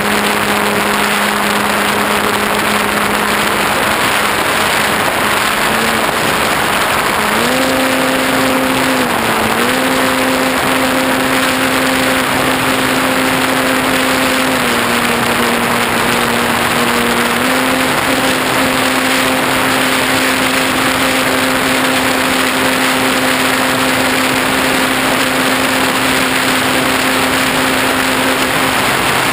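Electric motor and propeller of a ParkZone T-28 Trojan RC plane whining in flight, under a loud rush of air over the onboard camera. The pitch steps up about seven seconds in, dips briefly, drops around fourteen seconds and rises again near eighteen seconds as the throttle changes.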